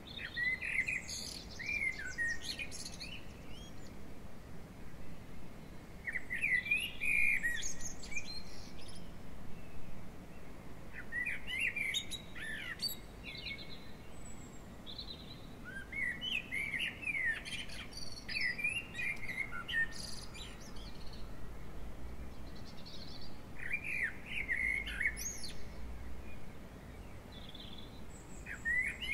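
A songbird singing short phrases of quick chirps and sweeping notes, repeated every few seconds.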